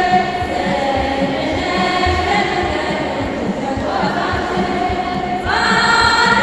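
Women's choir singing an Ethiopian Orthodox mezmur (hymn) together, with a kebero drum beating underneath. A new, louder phrase starts about five and a half seconds in.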